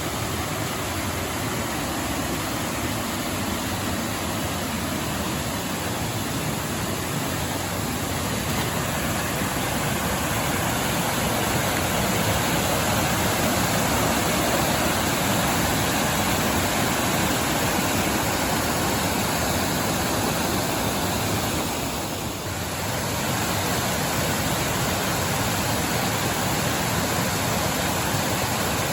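Waterfall: falling water rushing in a steady, even noise, with a brief dip about three-quarters of the way through.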